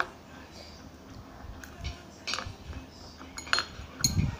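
Metal chopsticks clicking together and tapping against a plastic bowl while picking up rice: several separate sharp clicks.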